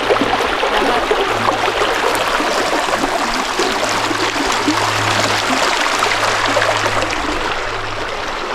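A river flowing: a steady, loud rush of moving water.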